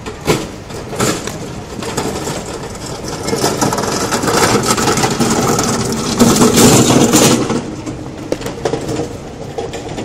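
Hand cart's wheels rattling over brick paving, growing louder as it is pushed close past and falling away about seven and a half seconds in.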